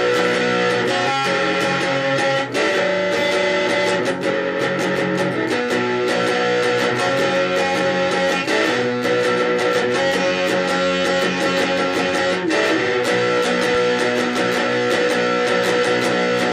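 Guitar intro to a song: steady strummed guitar chords that change about every two seconds, with no singing yet.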